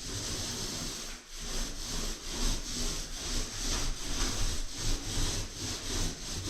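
Rhythmic back-and-forth strokes on wood, a little over two a second, as of a hand saw, sanding block or stiff brush working a board.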